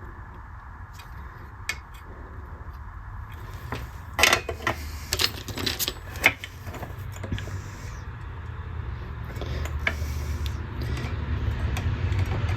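Sharp metallic clicks and snaps as a fret is pried out of a rosewood fretboard with a fret puller, a quick cluster of clicks from about four to six and a half seconds in and a few single clicks either side, over a steady low hum.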